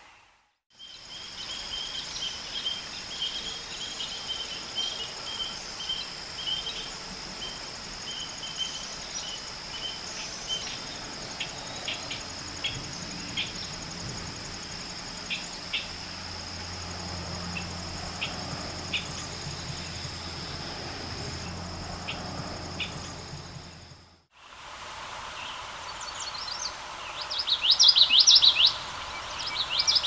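Outdoor ambience with a steady high insect buzz and scattered bird chip notes. After a break, a male common yellowthroat sings its rapid, repeated phrases loudly near the end.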